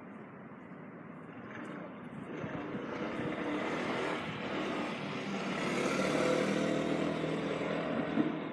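A vehicle passing by, its sound swelling over several seconds to a peak about six seconds in, then easing off, with a short sharp tick near the end.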